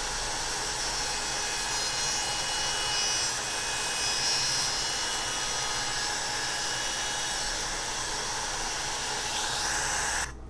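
Router running at full speed with a bearing-guided laminate trimming bit, flush-trimming a wooden pattern to its template: a steady high whine mixed with cutting noise. It stops abruptly about ten seconds in, followed by a single click.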